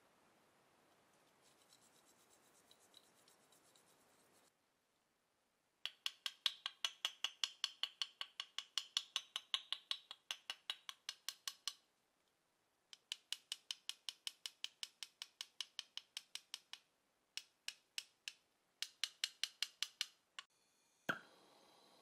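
Small hammer tapping quickly on a rusty steel padlock: light, ringing metallic taps about five a second, in runs of a few seconds with short pauses. Near the end a gas torch lights with a sudden pop and then hisses steadily.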